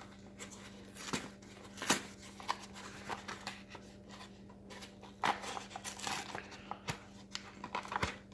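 Faint rustling and scattered sharp clicks of ration packaging being handled as a pouch of baked beans is taken out, over a steady low hum.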